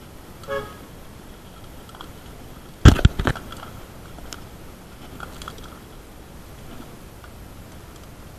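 Bicycle and handlebar-mounted camera knocking on a rough road: a quick cluster of three sharp knocks about three seconds in over a faint steady hiss, with a few lighter clicks later.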